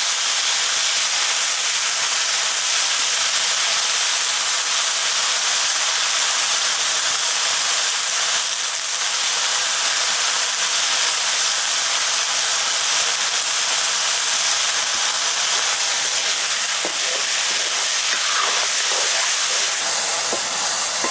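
Food frying in a pan: a steady, loud sizzle with no pauses, with a few light clicks near the end.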